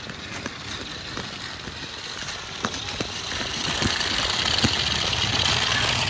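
Toy RC 4x4 rock crawler's small electric motor and gearbox whining as it drives over rough asphalt, with a few light clicks from the wheels on grit. It gets louder from about halfway through as the car comes up close.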